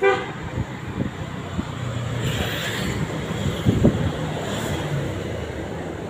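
A vehicle horn toots once, briefly, at the start, then steady traffic and engine noise from riding along a city road in an open auto-rickshaw.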